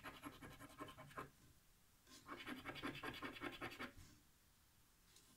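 A coin scratching the coating off a paper lottery scratch card in quick back-and-forth strokes: one run of scratching, a pause of about a second, a second run, then it stops about four seconds in.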